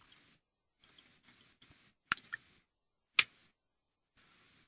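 Near-quiet room tone with a few short, sharp clicks: a quick cluster of three about two seconds in, then a single louder click about a second later.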